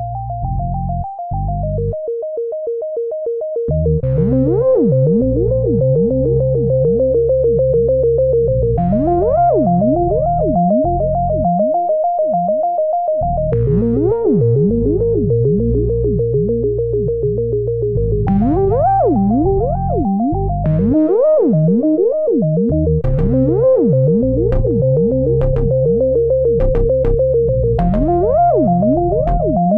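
Synthesizer music: a held keyboard note that shifts pitch every few seconds over a low bass line, with repeated swooping glides down and up. It fills out about four seconds in.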